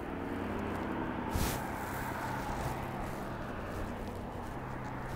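Fire engine's engine running, a steady low hum with a short hiss about a second and a half in.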